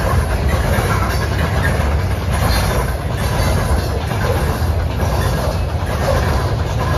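Covered hopper cars of a freight train rolling past at steady speed: steel wheels running on the rails make a steady rumble.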